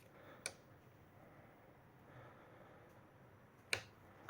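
Two short, sharp clicks from pressing a battery-free, self-powered wireless light switch or its receiver's pairing button while pairing them: a light one about half a second in and a louder one near the end, with near silence between.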